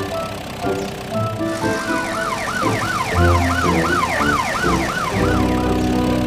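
Cartoon police car siren yelping, a quick rising-and-falling tone repeating about three times a second, starting about two seconds in and stopping about a second before the end. Background music plays underneath.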